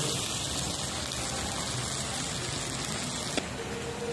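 Chicken and green peppers sizzling in a hot wok as they are stir-fried: a steady frying hiss, with one brief tap about three and a half seconds in.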